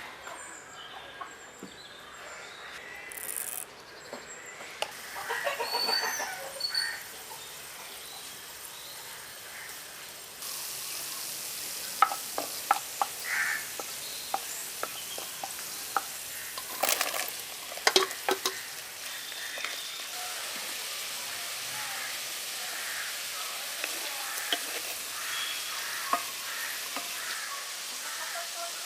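Birds chirping, then about ten seconds in, a sudden steady sizzle of food going into hot oil in a pan. The sizzle carries on with sharp clinks of a utensil against the pan as it is stirred.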